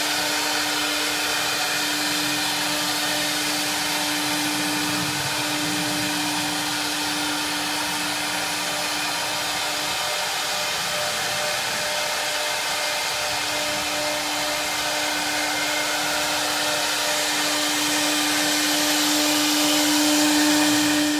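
Electric spindle of a four-axis swinging-head CNC router running at speed while carving a white block: a steady whine over a rushing hiss. The whine fades for a few seconds in the middle and comes back, strongest near the end.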